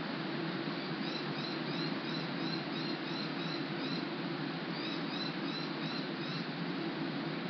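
Steady rain falling, a constant even hiss. A small bird calls over it in two runs of quick, high chirps, about three a second, with a short break in the middle.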